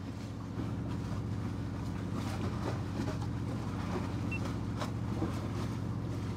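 An engine runs steadily with a low, even hum, with a few faint ticks over it.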